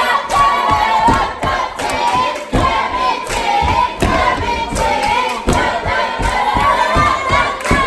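A crowd of young people singing together loudly, with frequent thumps under the voices.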